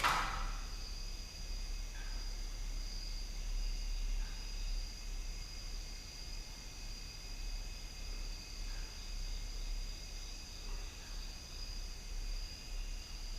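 Steady high-pitched trilling of night insects, with a low steady hum underneath and one sharp knock right at the start.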